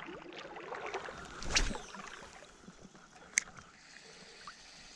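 Light lapping and sloshing of lake water while a spinning rod and reel are handled, with a dull knock about a second and a half in and a sharp click a little after three seconds.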